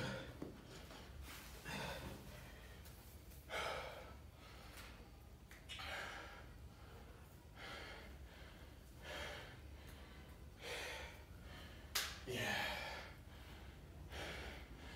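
A man breathing hard and catching his breath after a set of push-ups, a loud exhale about every one and a half to two seconds. A sharp knock right at the start and another about twelve seconds in.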